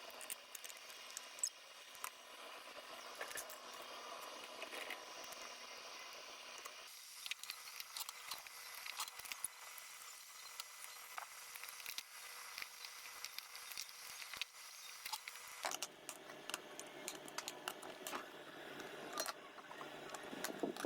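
Scattered small clicks and taps over a faint steady hiss, with the background noise changing abruptly twice.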